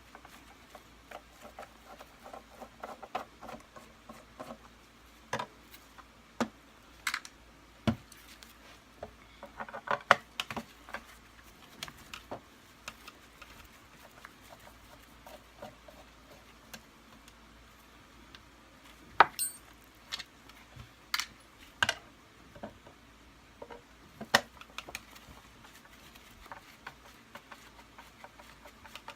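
Screwdriver working small screws out of a plastic vacuum-cleaner handle cover: scattered clicks, ticks and light scrapes of metal on plastic, with a handful of sharper knocks as parts are handled and set down.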